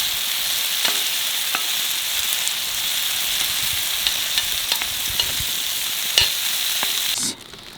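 Deer heart strips and onions sizzling in a hot skillet, with a utensil clicking against the pan now and then as the food is stirred. The sizzle cuts off abruptly near the end.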